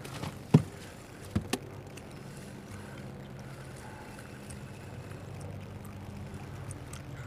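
A fishing boat's steady low hum with light water and wind noise, broken by three sharp knocks in the first two seconds, as of gear striking the hull.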